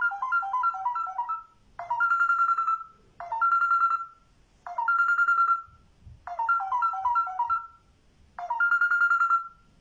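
Telephone ringtone melody ringing six times, about a second and a half apart: some rings a quick trill of notes, others one held tone.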